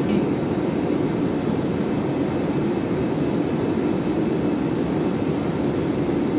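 Steady engine and air noise inside a passenger jet's cabin as it climbs after takeoff, with a faint tick about four seconds in.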